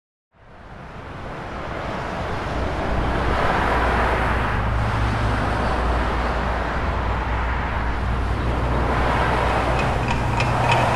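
Steady road traffic noise from a freeway fading in from silence, with a low drone under it. Near the end a watch starts ticking, about four ticks a second.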